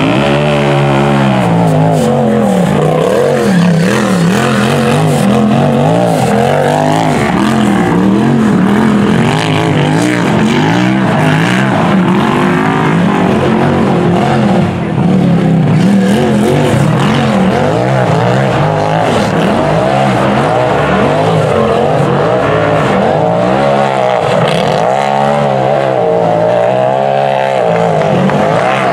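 Rock bouncer buggy's engine revving hard and unevenly, its pitch swinging up and down again and again as the buggy works its way over rocks.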